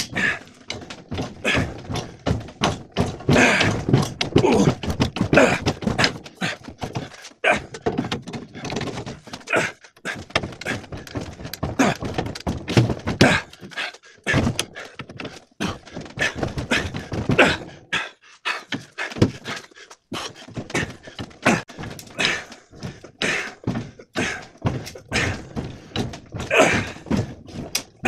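Repeated, irregular thunks and clanks from a wrench on a long steel cheater bar being heaved on against the metal wheel mount of a bandsaw. A seized part is being forced loose and is not yet giving way.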